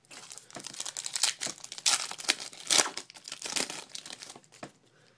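Trading-card pack wrapper being torn open and crinkled by hand: an irregular run of crackles and rips, loudest about two to three seconds in, that dies away near the end.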